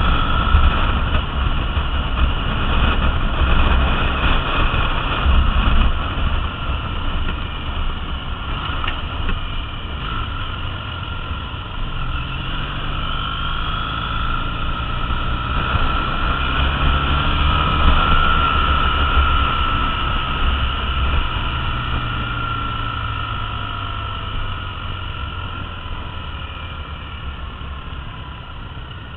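Triumph Bonneville T100 parallel-twin engine running under way, heard from the rider's seat with wind rushing over the microphone. The engine note climbs about halfway through, then eases off and gets quieter near the end.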